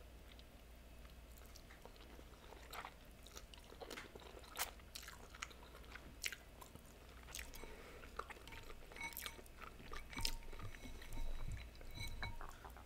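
Quiet chewing of noodles eaten with chopsticks: soft, wet mouth clicks that grow busier in the second half.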